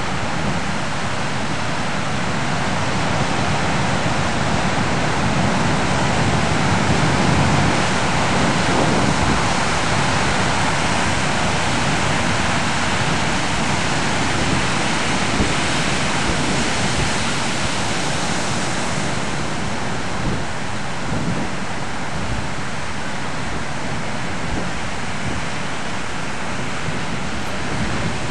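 Pacific Ocean surf breaking and washing up a sandy beach: a continuous, even rush of wave noise that swells about a quarter of the way in and eases a little in the second half.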